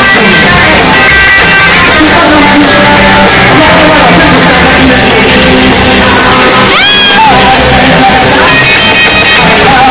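A rock band playing live and loud: electric guitar, upright bass and drums. One note slides upward about seven seconds in.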